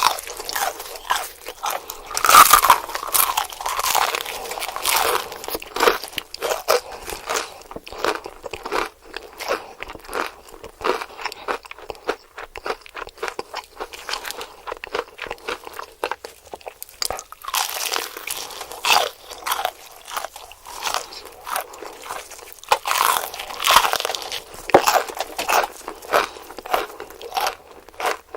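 Crunchy bites and chewing of KFC fried chicken, the fried coating crackling: bouts of loud crunching at the start, about two-thirds through and near the end, with quieter chewing in between.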